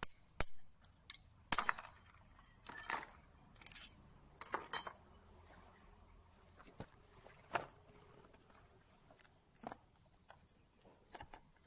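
Small steel valve parts (shims, spring and plug from a hydraulic control valve's reducing valve) clicking and clinking as they are handled and set down on a wooden workbench: a dozen or so sharp knocks at uneven intervals, over a steady high-pitched whine.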